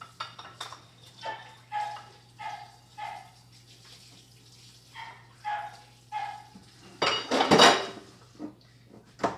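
A dog whining in short, high, repeated cries, about a dozen in two runs, then a louder rough sound about a second long around seven seconds in, and a sharp knock just at the end.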